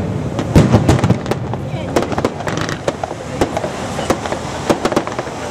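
Aerial firework shells bursting overhead: a loud bang about half a second in, then irregular sharper cracks and pops from further bursts and crackling stars.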